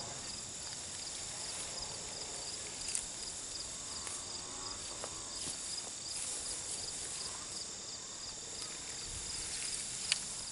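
Steady chorus of insects in summer grass, chirping in an even, repeating pulse, with a couple of faint clicks.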